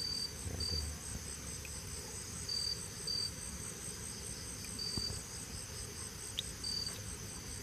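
Insects chirping: a steady, high pulsing trill, with louder short chirps every second or two.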